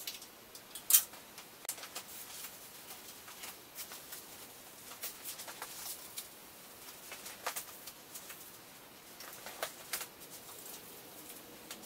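Hand handling and wiping with a rag at a metal gantry beam: scattered light clicks, taps and rustles at irregular intervals, the loudest a sharp click about a second in.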